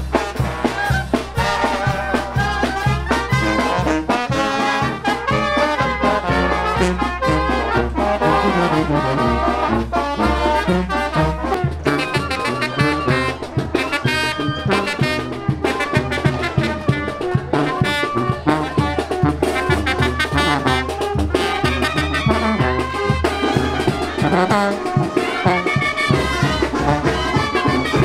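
A Mexican village brass band (banda de viento) playing a festive tune: trumpets and other horns carrying the melody over a steady sousaphone bass line, which changes pattern about a third of the way in.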